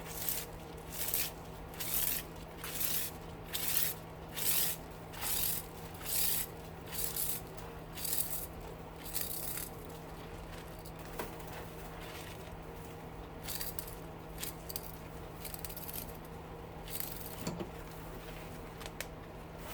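About a dozen rhythmic rasping strokes, a little more than one a second, from hand work on a scrap electric motor being taken apart, stopping after about nine seconds; a few light knocks follow over a steady low hum.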